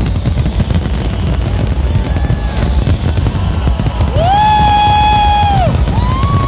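Outdoor crowd noise with a steady low rumble, over which two long held musical tones sound: one starting about four seconds in, and a higher one starting about six seconds in.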